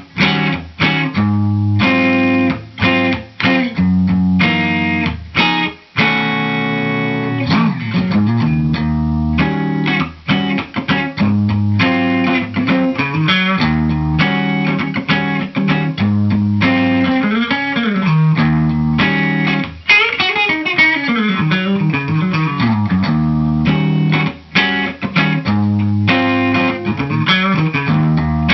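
Electric guitar played clean through a Fender blackface amp with a compressor pedal, mixing chords and single-note lines with string bends.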